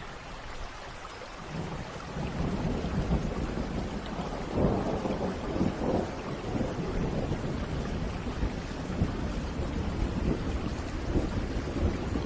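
Steady rain with a long roll of thunder. The thunder swells in about a second and a half in, rumbles low, and peaks in louder surges around the middle.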